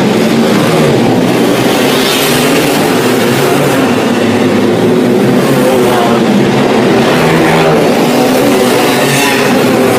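Several small winged dirt-track sprint car engines running hard together as the cars race around the oval, with a brighter sweep as cars pass about two seconds in and again near the end.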